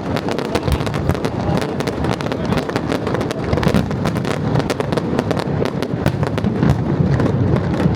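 Aerial fireworks display: a dense, continuous crackle of many overlapping pops and bangs, with deep booms underneath.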